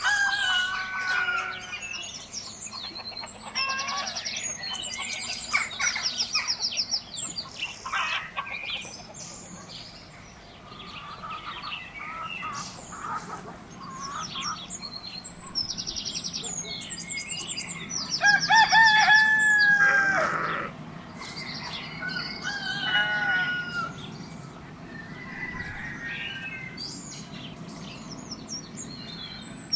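Chickens clucking and a rooster crowing, with small birds chirping throughout. The loudest call, the crow, comes about two-thirds of the way in.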